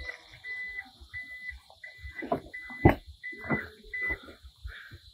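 Toyota Land Cruiser 300's power tailgate warning buzzer beeping at an even pace, about three short high beeps every two seconds, while the tailgate moves. The beeping stops about four seconds in, and a few knocks, the sharpest about three seconds in, fall between the beeps.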